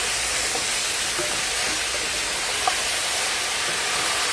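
Seasoned chicken frying and browning in a hot pot: a steady sizzle with small scattered pops and one sharper pop a little past halfway.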